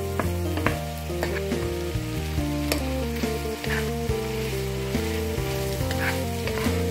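Spätzle, chicken and peas sizzling in a frying pan as a wooden spatula stirs and tosses them, with a few sharp taps of the spatula against the pan. Background music plays over it.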